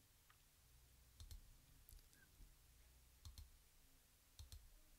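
Near silence: faint room tone with a low hum and a few scattered faint clicks.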